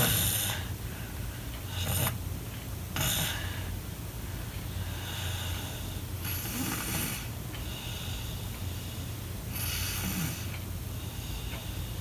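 A sleeping child snoring, with rasping breaths every one to three seconds over a steady low hum.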